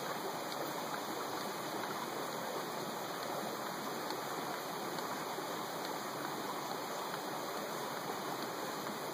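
Flowing stream, a steady, even rush of water.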